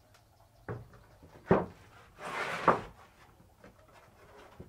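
Loose wooden planks being laid onto a bed frame: two knocks of board on wood, then a board sliding across the slats for under a second and ending in a sharp knock.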